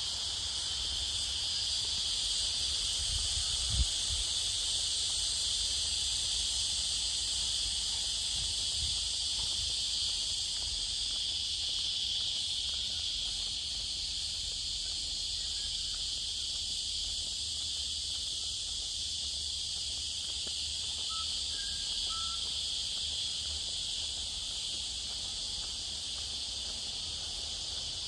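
Steady, unbroken high chorus of cicadas in the park's trees, over a low rumble. A single low bump comes about four seconds in, and a few faint bird chirps sound about three quarters of the way through.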